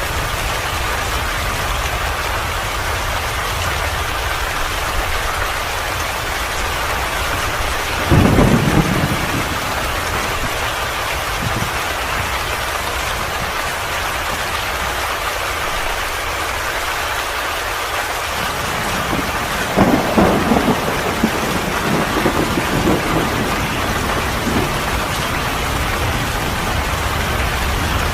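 Steady rain falling, with a low rumble of thunder about eight seconds in and another, longer rumble about twenty seconds in.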